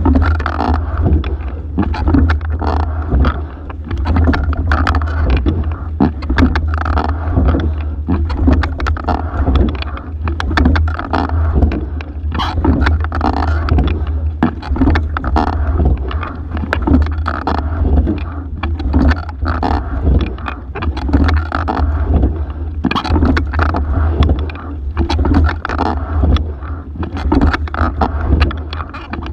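Single racing scull being rowed hard: the sculling oar blades splashing through the water, with many sharp clicks and knocks from the oarlocks and sliding seat. A constant low rumble runs underneath, picked up by a camera fixed to the boat.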